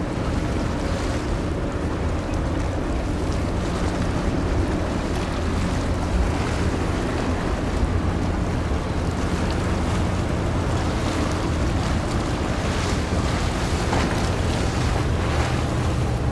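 A passing general cargo ship's diesel engine running with a steady low hum, under wind on the microphone and the wash of water.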